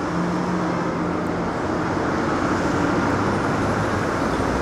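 Steady city street traffic noise, with a low steady hum over the first second and a half.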